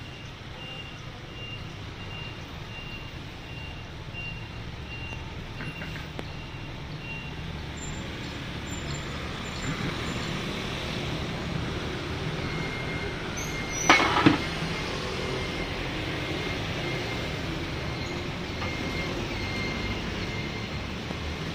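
Street traffic noise: a steady low rumble of vehicles with a repeating electronic beep, about two a second, for the first several seconds and again at a slightly lower pitch in the second half. Two sharp knocks close together, about two-thirds of the way through, are the loudest sound.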